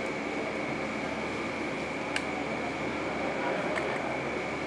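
Steady whirring hum of running kitchen machinery, with a high steady whine over it and a couple of faint clicks.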